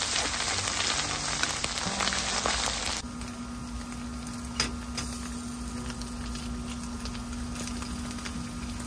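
Chopped vegetables sizzling loudly in hot oil in a wok while a spatula stirs them. About three seconds in, the sizzle suddenly drops to a quieter, steady frying hiss with a low hum underneath, broken once by a single sharp tap about halfway through.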